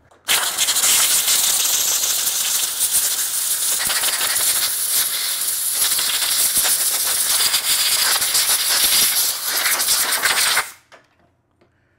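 Compressed-air blow gun on a coiled shop air hose hissing loudly as it blasts dust off an engine housing, running for about ten seconds and then cutting off sharply.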